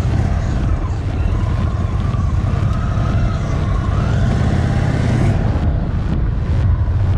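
Indian Chief Bobber's 116 cubic-inch V-twin engine running as the motorcycle is ridden, steady and heavy in the low end. Its note rises around four to five seconds in, with wind noise on the microphone.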